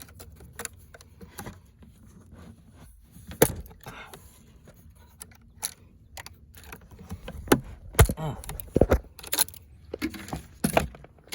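Irregular clicks, snaps and knocks of a new chainsaw being freed from its packaging: zip ties cut and pulled off, with plastic and cardboard rustling. The louder knocks come in a cluster about two-thirds of the way through.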